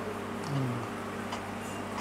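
Steady low mechanical hum of a restaurant dining room, with a brief low closed-mouth 'mm' from a man chewing about half a second in, falling in pitch, and a couple of faint light clicks.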